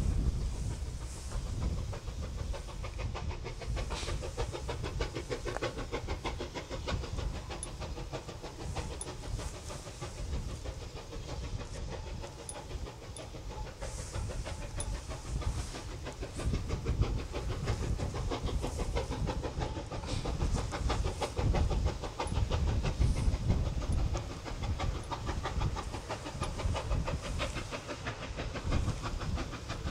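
Two QJ-class 2-10-2 steam locomotives double-heading a freight up a steep grade, working hard, heard from far off as a steady rapid chuffing of exhaust over a low rumble.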